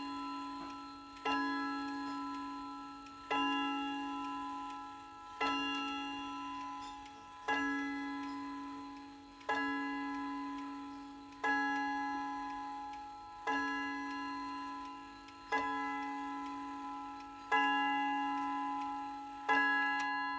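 Comitti mahogany wall clock striking: one ringing note, the same pitch each time, struck about every two seconds, ten times, each blow fading slowly before the next.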